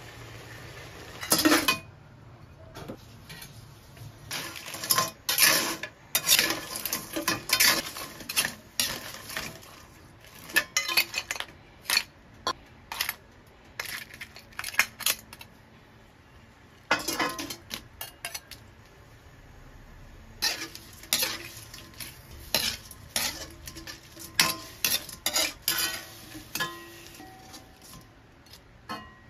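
A metal ladle scraping and clinking against a stainless steel wok and ceramic plates as cooked crabs and shrimp are scooped out, in irregular runs of sharp clinks with short pauses between.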